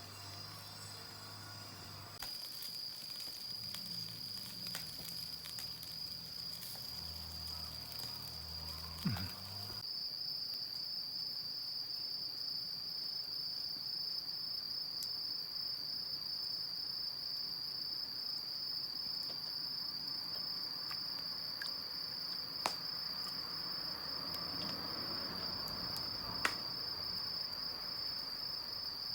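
Insects trilling steadily and high-pitched, cricket-like, with a few sharp pops from a crackling wood fire, one about nine seconds in and two near the end.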